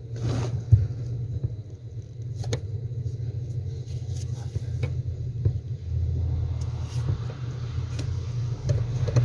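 A steady low rumble with a few light clicks and taps scattered through it, from a new plastic brake light switch being handled and fitted under the brake pedal; the rumble grows a little stronger after about six seconds.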